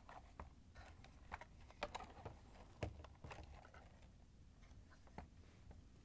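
Faint, scattered clicks and taps of a black plastic control board cover and harness retainer being handled and slid off a dishwasher control panel.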